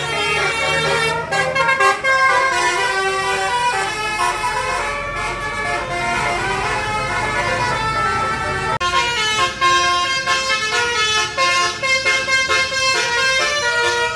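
Bus 'telolet' horn, a multi-tone musical horn, playing a run of stepping, changing notes several at a time, with bus engine noise underneath through the middle; the tune changes abruptly about nine seconds in.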